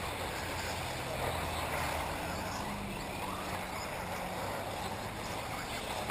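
Electric 1/8-scale RC off-road buggies running on a dirt track, a steady mix of motor and tyre noise.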